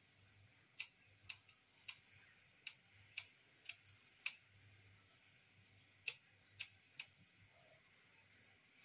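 Kitchen scissors snipping raw prawns to cut out the vein: about a dozen short, sharp snips in quick runs, with a pause a little past the middle.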